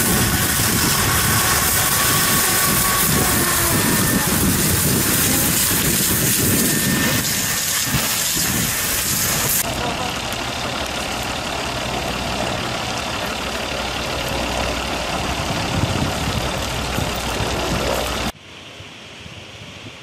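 Loud rushing hiss at a wildfire where a fire hose sprays water into burning trees, with voices. After a cut just before ten seconds in, a fire truck's engine runs steadily under the noise of the fire, and near the end the sound drops sharply to a much quieter rush.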